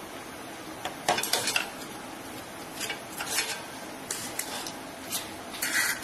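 Clicks and light clatter of a smartphone and small hand tools being handled and set down on a workbench, in several short bursts over a steady background hiss.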